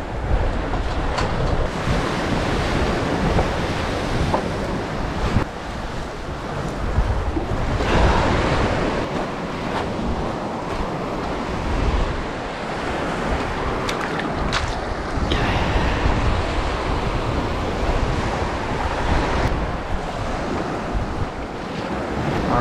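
Small waves breaking and washing up a pebble beach, with wind buffeting the microphone. A few light knocks of handling now and then.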